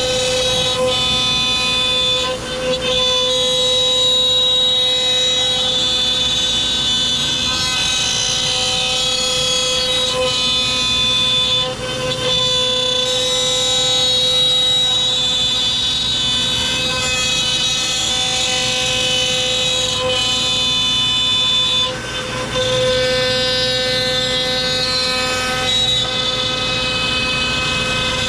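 CNC router spindle whining steadily as its bit cuts ash wood. The whine dips briefly about three times, as the cut changes.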